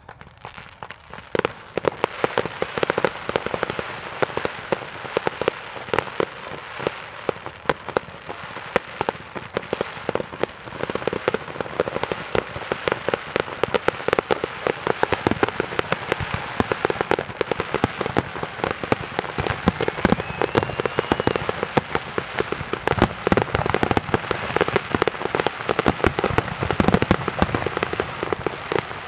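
Fireworks display: aerial shells bursting in quick succession, with many sharp bangs over a continuous crackle. It starts about a second and a half in and grows denser and louder.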